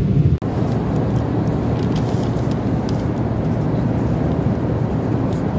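Steady jet airliner cabin noise from a window seat. Less than half a second in, it breaks off for an instant and comes back less deep, with a few faint light ticks in the middle.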